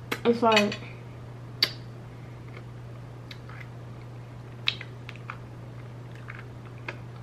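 A person eating hums a short 'mm' with her mouth closed, falling slightly in pitch, about a second long near the start. After it come a few scattered small clicks and mouth sounds as she eats, over a steady low hum.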